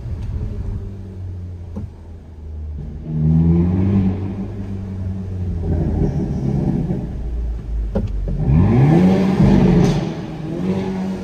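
Hyundai Kona N's turbocharged 2.0-litre four-cylinder engine accelerating. The revs rise about three seconds in and climb steeply again about eight and a half seconds in, with a few sharp cracks.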